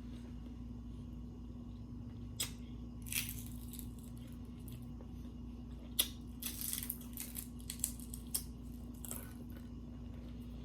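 Scattered crinkles, rustles and small clicks from food and its packaging being handled while tacos are prepared, over a steady low electrical hum.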